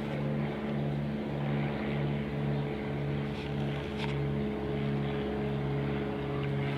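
Small tractor engine idling steadily, with a low even hum that swells and dips in a slow regular beat about twice a second.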